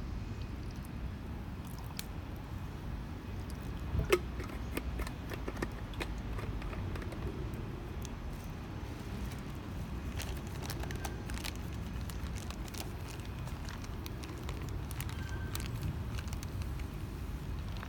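Small wood fire crackling, with scattered sharp pops and ticks, the loudest about four seconds in, over a steady low rumble.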